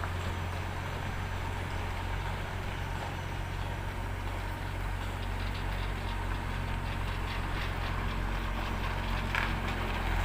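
Diesel engine of the truck towing the boat trailer, running steadily at low revs.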